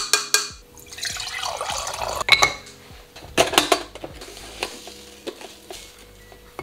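Kitchen handling sounds while a stovetop moka pot is filled: sharp clinks of glass and metal at the start, a short pour of liquid about a second in, a clatter of the coffee tin's wire-clasp lid being opened, then small scrapes and taps of a spoon putting ground coffee into the pot's filter basket.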